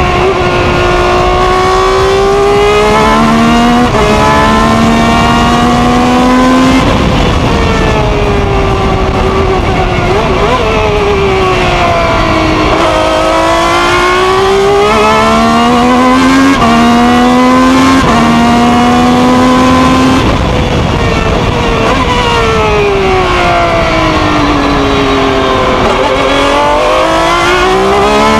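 Ferrari 333 SP's V12 engine heard onboard at racing speed. The pitch climbs in steps through quick upshifts, then falls away as the car slows for corners, and this repeats through the lap.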